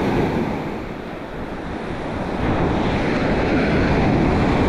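Waves breaking and washing up the beach, a steady rushing surf with wind buffeting the microphone. The surf grows louder about halfway through.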